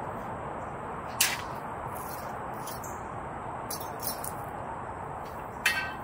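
Metal shepherd's hook being worked into garden soil: a few sharp clicks and clanks, the loudest about a second in and near the end, the last with a brief metallic ring, over a steady outdoor hiss.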